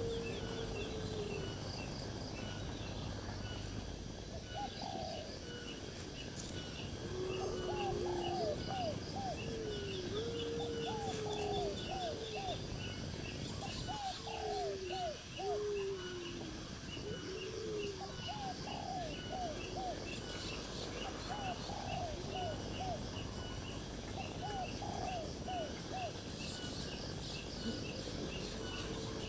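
Wild birds calling: low gliding calls and quick groups of three or four short higher notes, repeated through the middle of the stretch, over a steady train of faint rapid ticks.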